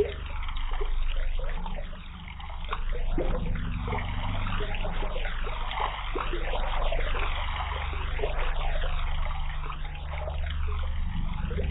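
Large metal singing bowl ringing with a steady low hum, its higher overtones sweeping up and down in a repeating wobble about once a second.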